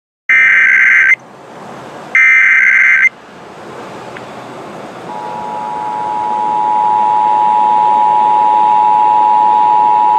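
Emergency Alert System required monthly test: two bursts of the SAME header data tones, a loud shrill digital buzz of about a second each, a second apart. Then, about five seconds in, the two-tone EAS attention signal starts and holds steady, over radio hiss that grows louder.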